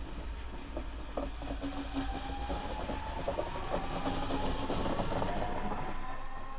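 Red DB S-Bahn electric multiple unit accelerating away, its traction motors giving a steadily rising whine, with scattered clicks of its wheels over rail joints.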